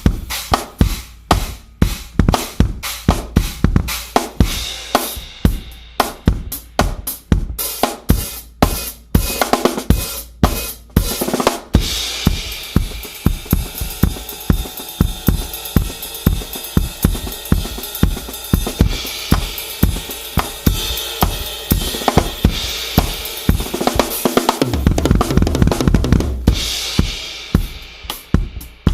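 Tama drum kit played with quick, busy strokes on bass drum, snare and toms, showing off a custom drum tuning. In the middle the cymbals wash on under the strokes for several seconds, and a low drum booms near the end.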